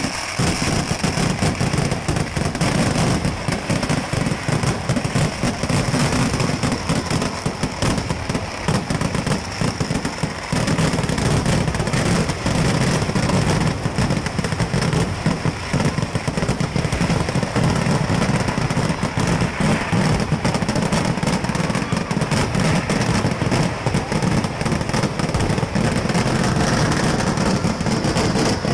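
Kerala vedikettu fireworks barrage: a continuous, rapid string of firecracker bangs and crackling with no let-up.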